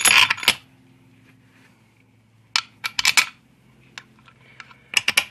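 Small metal parts and tools clinking and rattling as they are handled around an aluminium transmission case, in three short clusters: at the start, around three seconds in, and near the end.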